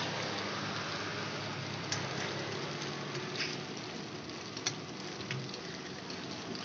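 Steady frying sizzle from egg and tapioca cubes cooking in a multi-cup metal pan, with a few light clicks of a spoon against the metal cups.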